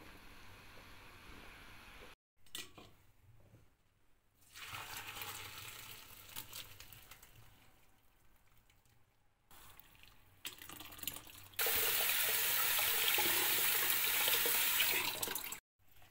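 Water pouring and splashing into a kitchen sink as boiled vegetables are drained from a pot through a plastic colander. A louder, steady gush of water into the sink starts about twelve seconds in and cuts off sharply after a few seconds.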